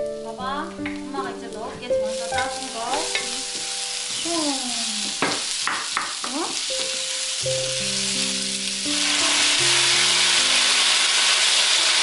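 Chopped onion and cherry tomatoes sizzling in a frying pan, stirred with a long wooden spatula. About nine seconds in, the sizzle turns much louder and steadier as pasta water is ladled into the hot pan.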